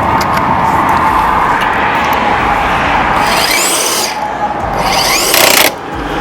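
DeWalt DCF961 20V Max half-inch cordless impact wrench running lug nuts onto a wheel in two short bursts, about three and five seconds in, each rising in pitch as the motor spins up. It is set to precision wrench mode, which stops the tool before the nut is over-tightened.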